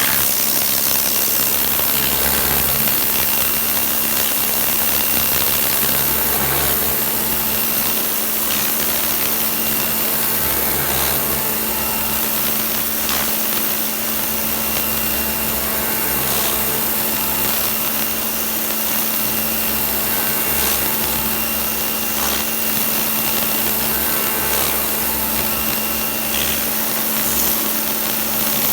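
Kärcher pressure washer running steadily, a constant motor hum under the hiss of the water jet spraying onto stone patio flags.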